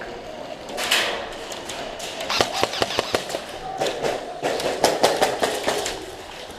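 Airsoft guns firing indoors: a run of sharp snapping shots, some in quick bursts, from a couple of seconds in until near the end.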